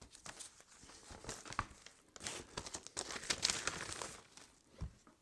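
Paper record sleeve rustling and crinkling as a vinyl record is slid out of it, with scattered light clicks and a soft thump near the end.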